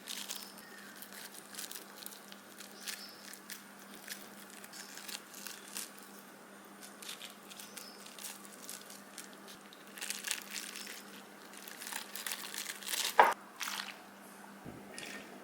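Food being handled by hand in a kitchen: scattered soft crinkling, squishing and crunching over a steady low hum, with one louder knock near the end.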